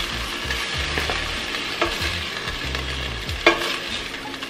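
Melted butter sizzling in an enamelled pot as chicken pieces are lifted out with a black plastic spoon. The spoon clicks against the pot a few times, loudest about three and a half seconds in.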